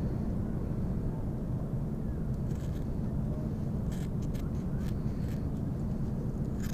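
A steady low rumble, with a few faint clicks and snips around the middle as a dogfish is cut into bait strips with a blade.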